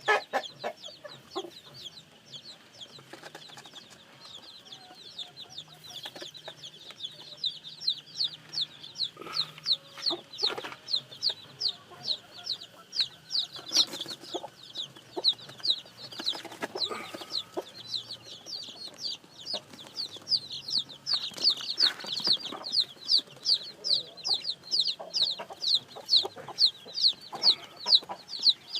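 Newly hatched chicks peeping steadily: short, high, falling cheeps at about three a second, growing denser after the first few seconds. A few lower clucking calls come through now and then.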